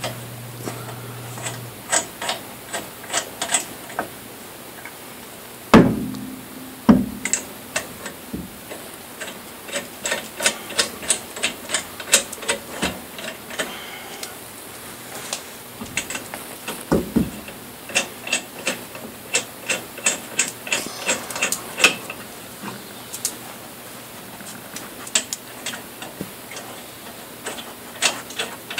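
Lug wrench working the lug nuts of a steel spare wheel: a run of light metal clicks and clinks, at times several a second, with a few heavier knocks, the loudest about six seconds in, another a second later and one near seventeen seconds.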